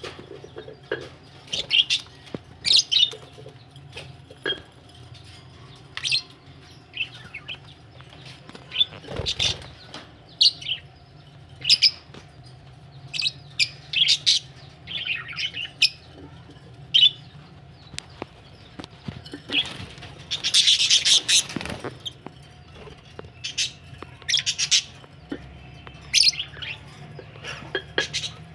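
Budgerigars chirping and chattering in short, scattered calls, with a longer burst of chatter about two thirds of the way through.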